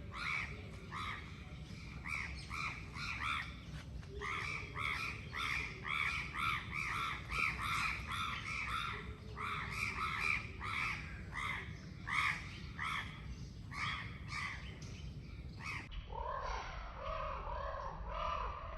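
Wild animal calls: a fast run of short, arched, repeated calls, a few each second. About sixteen seconds in, the sound cuts abruptly to a different, lower-pitched calling.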